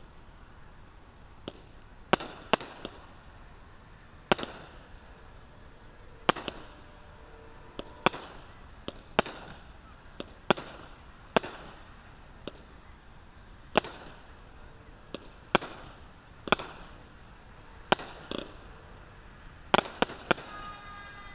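A consumer fireworks cake firing: sharp bangs of shots launching and bursting overhead, roughly one every second, with three quick bangs near the end.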